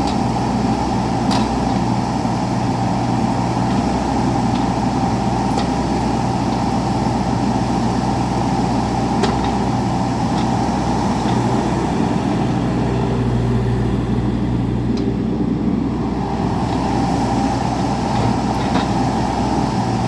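2020 Bobcat E26 mini excavator's diesel engine running steadily, with a few light clicks.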